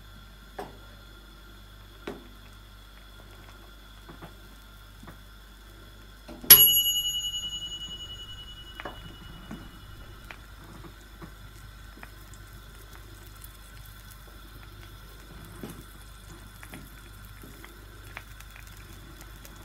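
Faint soft ticks and rustles of grated cheese being scattered by hand over a pizza, under a steady faint high whine and hum. About six and a half seconds in, a single sharp metallic ding rings out and fades over a few seconds.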